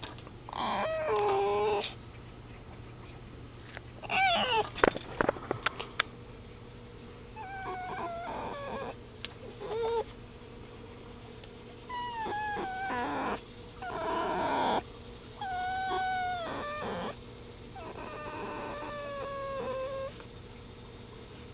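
Pet red fox whining and whimpering while being stroked: a series of high, wavering calls, each about a second long, with short pauses between them. There is a quick run of sharp clicks about five seconds in.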